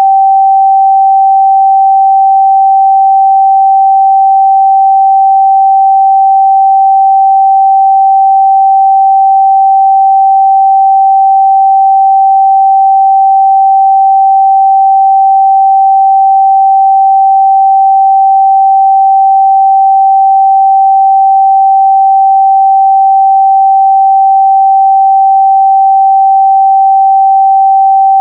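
A pure 777 Hz sine-wave test tone, held steady and unbroken at a constant loud level.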